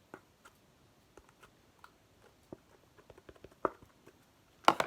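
Sticky slime being kneaded and stretched by hand, giving scattered soft clicks and wet pops, with a louder cluster of pops near the end.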